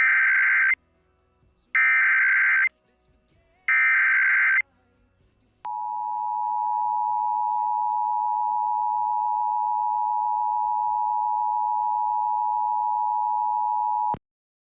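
Emergency Alert System tones: three short bursts of screeching SAME header data, each under a second and about a second apart, then the two-tone attention signal, a steady two-pitch tone near 1 kHz held for about eight seconds that cuts off suddenly.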